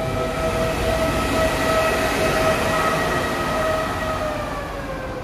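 Trenitalia E.464 electric locomotive moving a regional train of double-deck coaches past along the platform: a steady electric whine over the rumble of the wheels on the rails, the whine dropping slightly in pitch as the locomotive goes by near the end.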